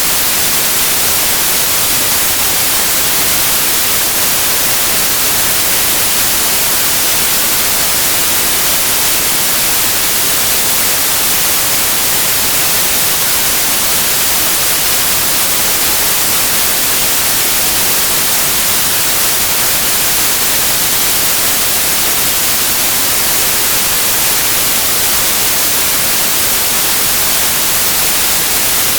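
Steady white noise: an even, hissing static with no tones, rhythm or changes, brightest in the high frequencies.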